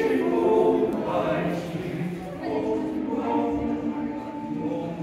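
Male-voice choir singing a slow piece a cappella in held chords, with a brief break between phrases a little over two seconds in.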